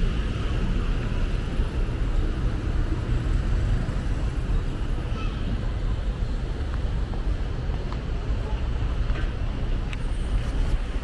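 Steady city street traffic noise: motor vehicles passing on a busy road, with a few faint clicks near the end.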